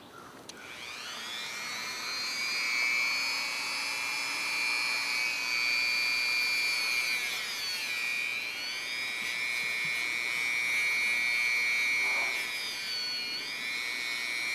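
Dremel Moto-Tool rotary tool spinning up and running at a high whine, its rouge-loaded buffing wheel polishing a corroded brass fuse holder terminal. The pitch dips twice, about halfway and near the end, as the motor slows under the wheel's contact with the metal.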